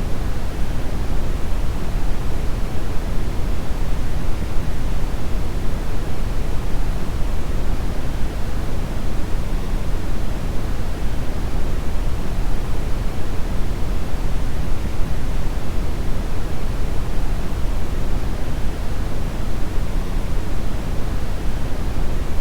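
Brown noise: a steady, deep rumbling hiss with most of its energy in the low end, unchanging throughout.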